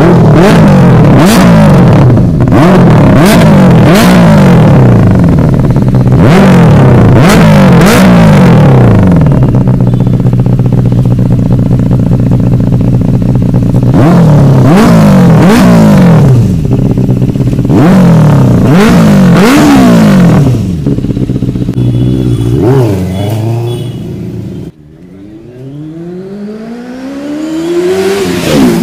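Benelli 600i's 600 cc inline-four revved in neutral: about a dozen short throttle blips, each rising and falling back, with a steady idle between two bursts of blips. Near the end a motorcycle engine rises in pitch as it approaches.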